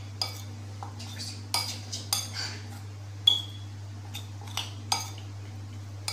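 A metal spoon clinking and scraping against a glass mixing bowl as sliced snake gourd is tossed in a flour-and-spice coating: about ten irregular sharp clinks with a brief ring, the loudest a little past three seconds in. A steady low hum runs underneath.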